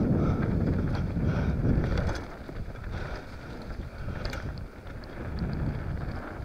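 Wind buffeting the action camera's microphone over the rolling of mountain bike tyres on a dirt trail at speed, with scattered light clicks and rattles. The rumble is loudest for the first two seconds, then eases as the bike slows.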